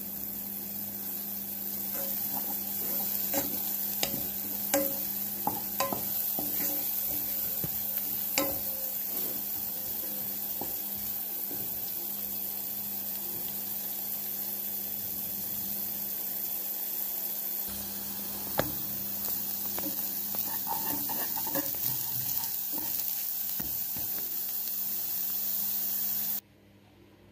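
Chopped onion, green pepper and garlic sizzling as they fry in oil in a nonstick pan, stirred with a wooden spatula that clicks and taps against the pan, often in the first several seconds and a few more times later. A steady low hum runs beneath, and the sound cuts off abruptly near the end.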